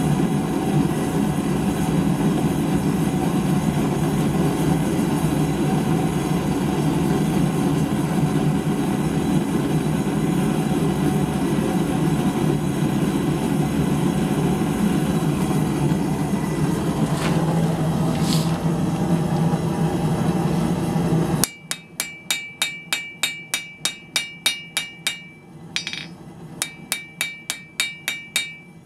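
A steady rushing noise, then a blacksmith's hammer striking hot steel on an anvil in quick even blows, about three or four a second, each with a bright ring. The hammering flattens the end of a forged coat hook, with a short pause partway through.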